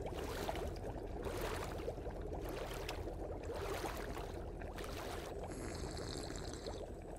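A pan of paella sizzling and bubbling on the burner: a steady, dense crackle.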